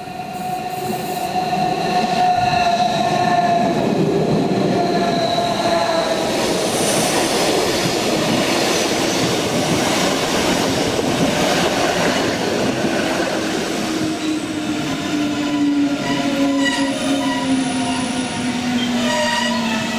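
Rhaetian Railway Bernina Express, an electric narrow-gauge train, pulling in and passing close by. A whining tone from its drive slowly falls in pitch as it slows, a rumble of wheels on rail swells loudest in the middle as the coaches go past, and a lower falling whine follows.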